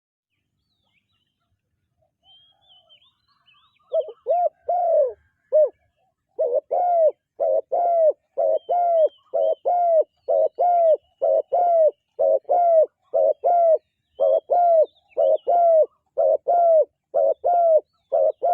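Spotted dove cooing: a rapid series of short, low coo notes, often in pairs at about two a second, starting about four seconds in and keeping on. Faint high chirps from other birds sound above it.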